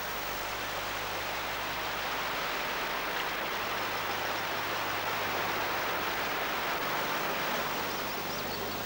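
Fast river water rushing over rocks, a steady rush of white water with a faint low hum underneath.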